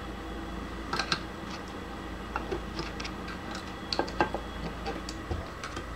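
Scattered light metallic clicks and taps, irregular and a second or so apart, as small metal parts of a Vevor drill bit sharpener are worked by hand to free a part that is catching on a small tab.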